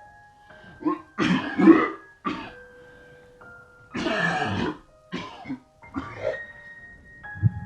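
A person coughing repeatedly, about six harsh coughs with one longer one near the middle, over soft background music of held notes.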